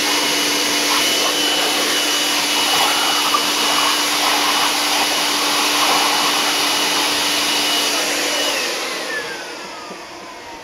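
Corded electric leaf blower running with a steady whine over the rush of air, then switched off about eight and a half seconds in, its pitch falling as the motor spins down.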